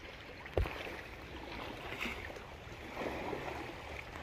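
Shallow sea water lapping and splashing at the shore, with one sharp thump about half a second in.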